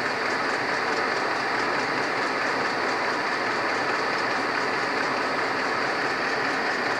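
Steady road and engine noise of a moving car heard from inside its cabin, with a faint, rapid, even ticking running through it.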